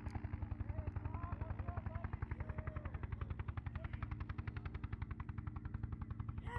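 Helicopter rotor beating steadily, about a dozen thumps a second over a low steady hum.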